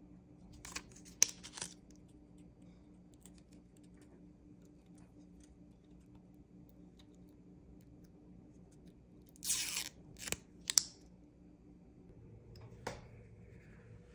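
Plastic camera parts being handled: a few sharp clicks and a short scrape as a lens cover is taken off and fitted. A faint steady hum sits underneath.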